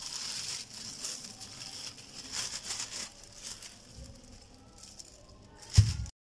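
Thin plastic carrier bag rustling and crinkling as it is pulled out and opened by hand, with a brief loud thump just before the sound cuts off.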